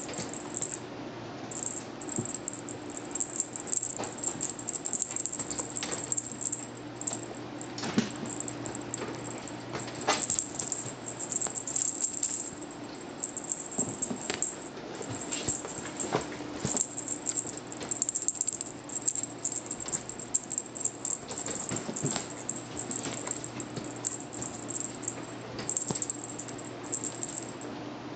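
A Maine Coon kitten at play, making irregular rattling, clicking and tapping sounds throughout, over a steady low hum.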